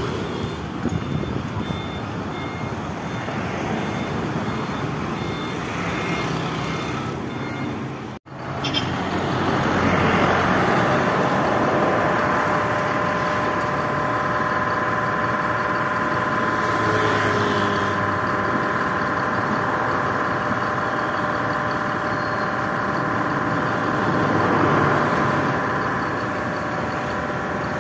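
Road traffic with a vehicle engine running steadily. The sound cuts out for an instant about eight seconds in, and from about ten seconds a steady hum holds several fixed tones.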